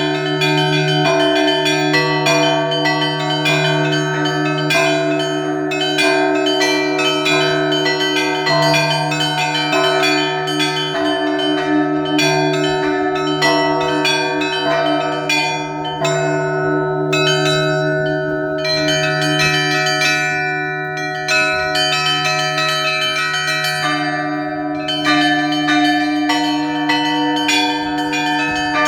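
Russian Orthodox church bells in a festive peal (zvon): a large bell's deep hum sustains underneath while smaller clapper-struck bells ring in fast, dense rhythmic patterns, with no pause.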